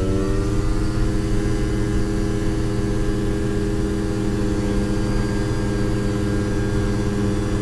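Rotax 582 two-stroke twin of a Kitfox Model 2 ultralight, heard from inside the cabin, finishing a rise in pitch in the first half second and then running steadily at high power, as at the start of a takeoff.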